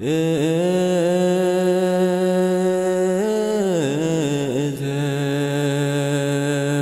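Ge'ez liturgical chant in the Eritrean Orthodox Tewahedo style: a voice sings long held notes that step up slightly about three seconds in, then waver through an ornamented run before settling on a held note again.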